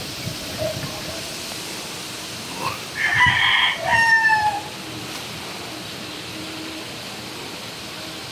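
A rooster crowing once, a call of about two seconds that ends on a falling note, over a steady faint outdoor hiss.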